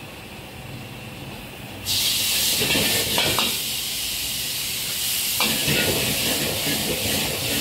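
Food sizzling hard in a hot wok over a gas burner. The loud hiss starts suddenly about two seconds in, with a metal spatula scraping and stirring in the wok a few times.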